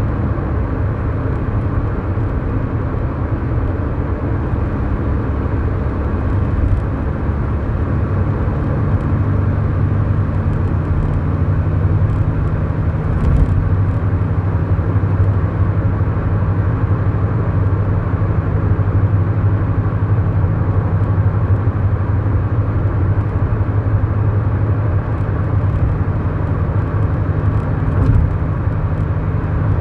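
Inside the cabin of a 2011 Kia Morning with its 999 cc four-cylinder engine, a steady engine drone and tyre and road noise as the car cruises along an expressway. There is one brief tap about thirteen seconds in.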